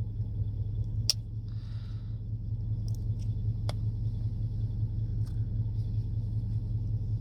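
A few sharp clicks a couple of seconds apart, typical of a two-spring slipjoint pocket knife's blades snapping against the backspring as they are worked through their half stops, over a steady low hum.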